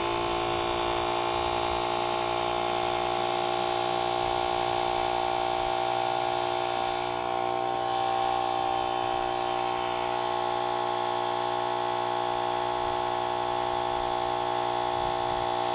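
OutdoorMaster "The Shark" electric SUP air pump running steadily as it inflates a paddleboard, a constant motor whine with several steady tones. It is in its low-volume, high-pressure stage.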